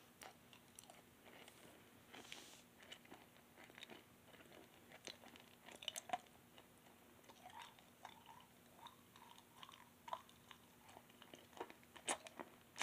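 A mouthful of jelly beans being chewed, heard as faint, scattered wet clicks and smacks of the mouth, with a couple of louder smacks near the end.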